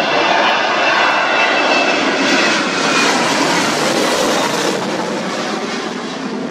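Jet2 Boeing 737's twin CFM56 turbofan engines at takeoff thrust as it climbs out overhead: a loud, steady jet roar with a high whine that fades about three seconds in. The roar eases off slightly near the end as the plane moves away.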